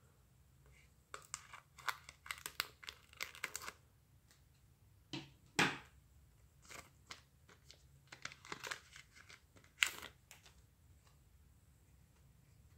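Wrapper of a three-card Pokémon trading card mini pack crinkling and tearing as it is opened, with the cards inside being handled. The crackling comes in short clusters, with a few sharper single crackles between them.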